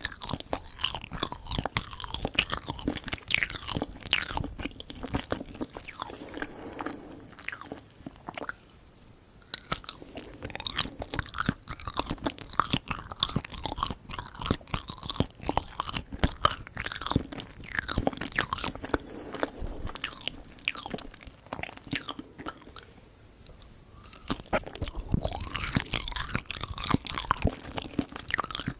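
Close-miked ASMR eating of Korean sweets: bites and chewing with quick runs of wet mouth clicks and smacks, easing off briefly about a third of the way in and again near the end.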